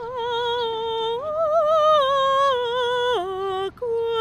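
A soprano singing without accompaniment: long held notes with vibrato. The voice rises to a higher note about a second in, then steps down through two lower notes, with a short break for breath near the end.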